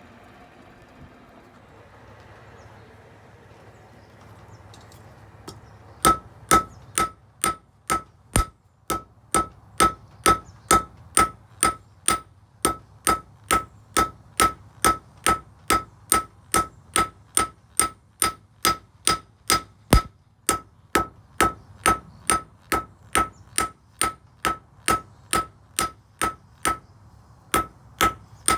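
Blacksmith's hammer striking on an anvil while forging nails, about two blows a second with a ringing note on each blow and a few short pauses. The hammering starts about six seconds in, after a low steady hum.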